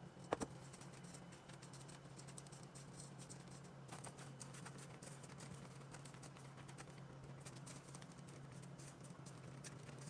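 Faint ticking and light rattling of dog food being stirred in a bowl, with one sharp knock just after the start, over a steady low hum.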